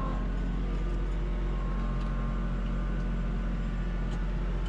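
Kubota B2650 tractor's three-cylinder diesel engine running steadily, heard from inside the closed cab.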